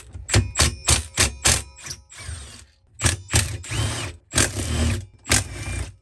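Milwaukee M12 Fuel brushless cordless impact tool hammering loose the crankcase cover bolts of a lawn mower engine. It goes in a quick series of short bursts, then three longer runs with a whine in them.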